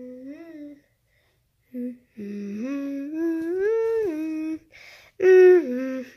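A young boy humming a wordless tune in a few short phrases, with held notes that slide up and down; the longest phrase climbs to a high note and falls again.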